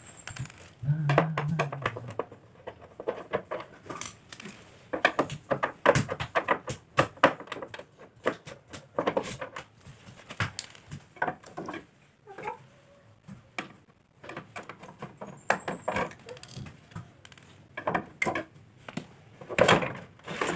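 Plastic back cover of an LG slim CRT television being unscrewed and pulled off: irregular clicks, small metallic clinks and knocks of screws and plastic being handled.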